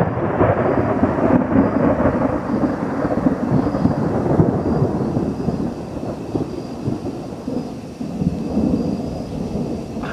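Thunder rolling and rumbling. It is loudest over the first few seconds, fades through the middle, and swells again about eight seconds in.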